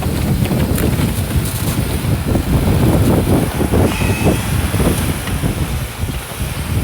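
Off-road vehicle driving on a rough trail: a loud, uneven low rumble of engine and tyres, with wind buffeting the microphone and a few short knocks.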